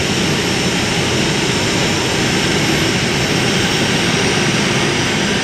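Multi-engine modified pulling tractor's engines running at a steady, loud idle, with no revving.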